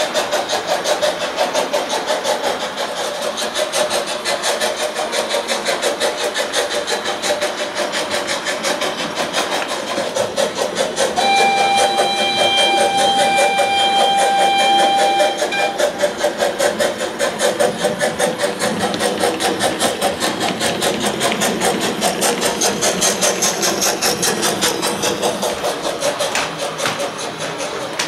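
Gauge 0 model steam locomotive running with steam sound, its exhaust chuffing in a rapid, even beat. A whistle sounds for about four seconds near the middle.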